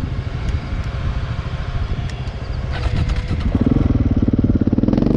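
Motorcycle engine running with a fast, even pulse, getting louder about three and a half seconds in.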